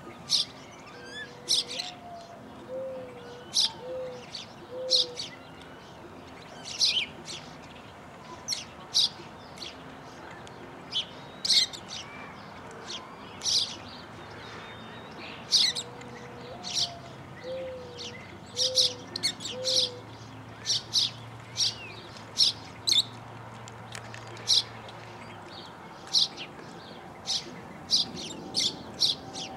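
A flock of wild parrots calling: many short, sharp, high-pitched shrieks at irregular intervals, often several in quick succession. A low three-note call repeats twice in the background.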